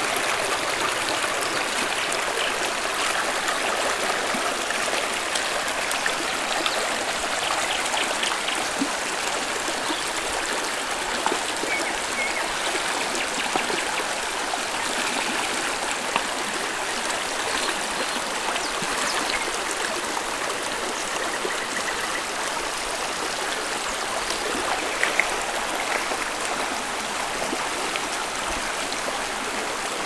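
Shallow rocky stream running steadily over stones, with small splashes as potatoes are rinsed by hand in the water and a few sharper clicks, about 11, 16 and 25 seconds in.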